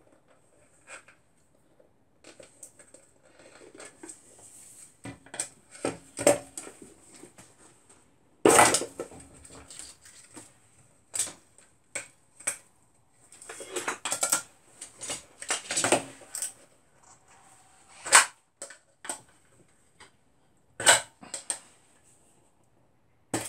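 Screwdriver prying and scraping around the rim of a stainless steel bowl to free a hardened polyurethane resin casting: irregular metallic scrapes and sharp clicks as pieces of resin flash break away.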